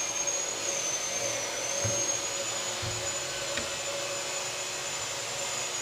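Steady background machine whine: a thin high tone that wavers slightly over a low even hiss, with a couple of faint soft thumps about two and three seconds in.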